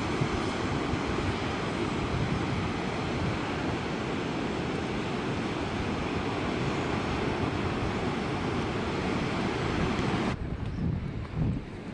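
Steady rushing noise of ocean surf mixed with wind on the microphone. About ten seconds in the hissing part cuts off suddenly, leaving an uneven, gusty low rumble of wind.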